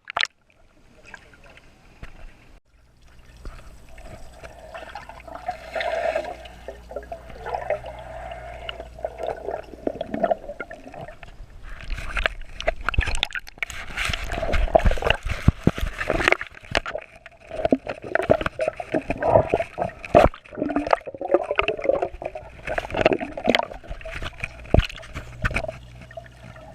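Water splashing and gurgling, with many sharp knocks and clicks, getting busier about halfway through.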